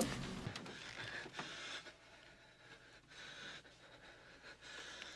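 A man's faint heavy breathing, about four hoarse breaths roughly a second apart, after a short click at the very start.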